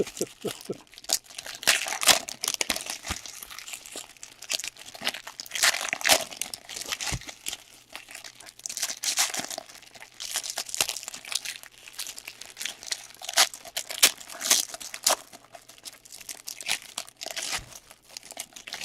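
Foil wrappers of hockey card packs crinkling and tearing as the packs are opened, with cards handled between: a steady run of short crackles and snaps.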